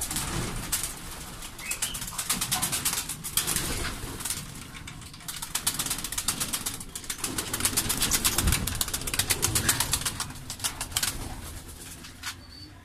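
Homing pigeons taking off from their loft, many wings flapping in quick runs of beats.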